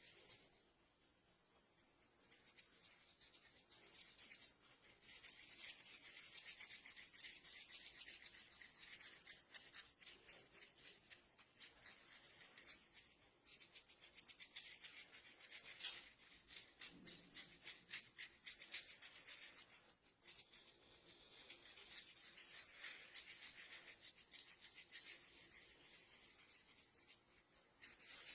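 Fingers rubbing briskly through hair and over the scalp in a head massage: a faint, dense scratchy rustle of many quick strokes, breaking off briefly about four and twenty seconds in.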